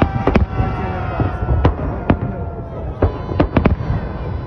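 Aerial firework shells bursting in a string of sharp bangs at uneven intervals, over a steady low rumble. Long high tones slide slowly down in pitch between the bangs.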